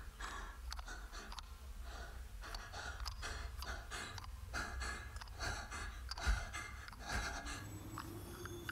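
Quick, heavy breathing, about two breaths a second. There is a soft thump about six seconds in, and a low held tone comes in near the end.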